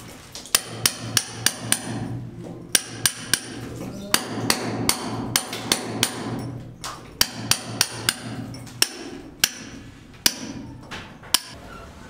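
Hand hammer striking a chisel to chip at a concrete wall seam. The blows are sharp and come in quick runs of three to five, about three a second, with short pauses between, over a steady low hum.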